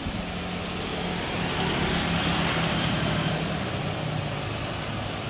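Airbus A350-900's Rolls-Royce Trent XWB turbofans at takeoff thrust as the jet lifts off: a steady rushing jet noise with a low drone. It grows louder about a second and a half in, then eases slightly as the plane climbs away.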